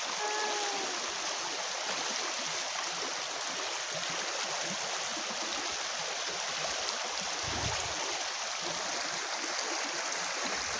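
Shallow forest river flowing: a steady, even rush of running water.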